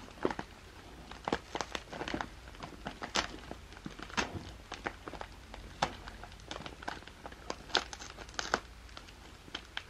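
Paper tea pouch crinkling and crackling in irregular sharp bursts as fingers fold and pick at its sealed top to open it.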